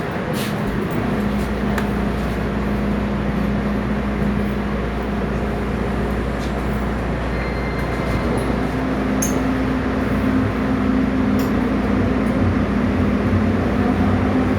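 MTR M-train electric multiple unit running, with a steady low rumble and a traction-motor hum. About eight seconds in, a second motor tone comes in and slowly rises in pitch as the train gathers speed.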